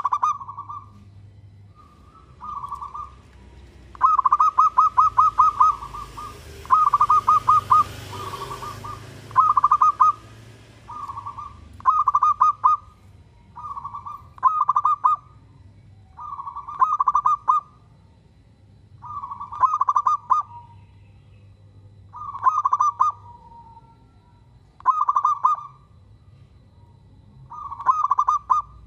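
Zebra dove (perkutut) singing: short phrases of rapid staccato coos repeating every two to three seconds, louder from about four seconds in.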